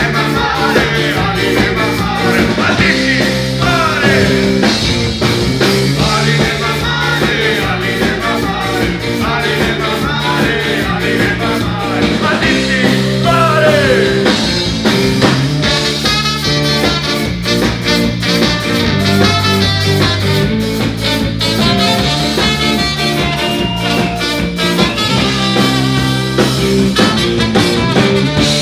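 Live rock band playing: trumpet lines over electric guitar, bass guitar, keyboard and drums, with a steady beat of drum and cymbal hits.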